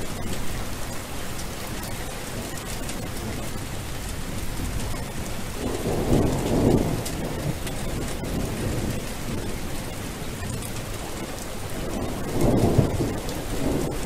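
Steady rain falling, with low rolls of thunder swelling about six seconds in and again near the end.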